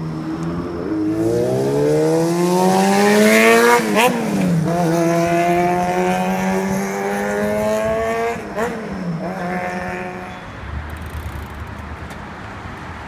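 Yamaha XJR400R's air-cooled inline-four engine, fitted with a Dangan Racing inner silencer, accelerating through the gears. The pitch climbs for about three seconds, drops at a shift about four seconds in, climbs again more slowly, and drops at a second shift near nine seconds. It then holds steady and fades.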